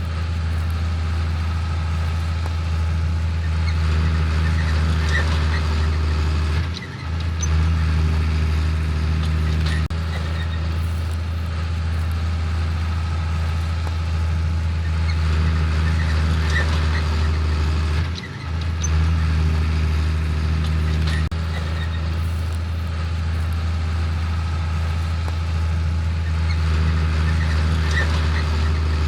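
Large diesel farm machinery running steadily at working speed, a continuous low engine drone that dips briefly twice.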